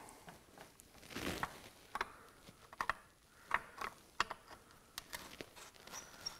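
Faint, scattered clicks and ticks of a screwdriver and hands working the screws and housing of a Minn Kota PowerDrive trolling motor's control head to take it off.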